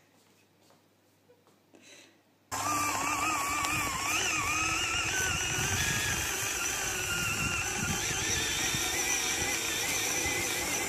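Near silence for about two and a half seconds. Then, suddenly, a battery-powered children's ride-on toy quad's electric motor whines, its pitch wavering up and down over a steady rushing noise.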